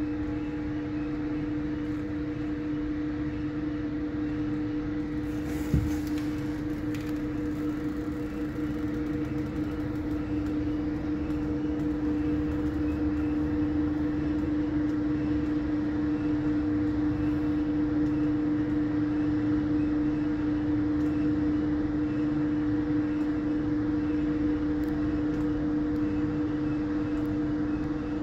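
Steady machine hum of an aerial cable car, heard from inside the cabin, with a constant low drone throughout. A single sharp click comes about six seconds in, and the hum grows slightly louder partway through.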